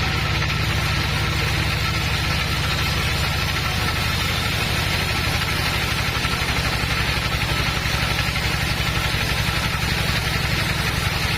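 Sawmill machinery running steadily without cutting: a low, fast-pulsing drone with a faint high tone above it.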